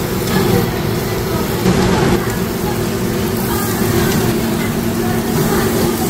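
Pork belly strips sizzling on a hot round Korean barbecue grill plate, a steady crackling hiss over a constant low hum.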